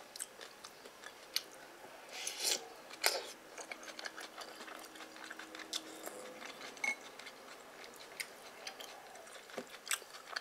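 Scattered light clicks and taps of a metal spoon and wooden chopsticks against ceramic bowls, with a small cluster of taps a couple of seconds in.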